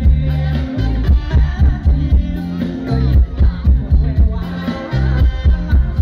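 A live band playing loud amplified music through a PA system, with a heavy, pulsing bass-and-drum beat and a singer's voice over it.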